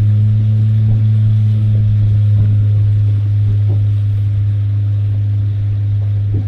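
A motorboat's engine running steadily while underway, a low, even drone.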